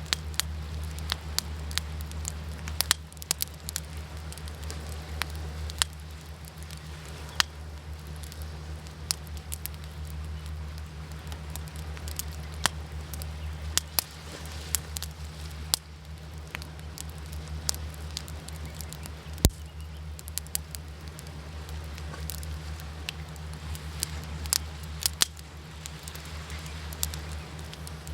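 Wood fire crackling, with irregular sharp pops and snaps over a steady low rumble of waves.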